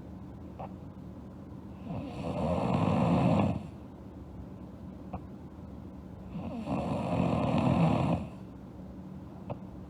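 A sleeping girl snoring: two long, rasping snores about four and a half seconds apart, each lasting a second and a half or more, with quiet breathing between them.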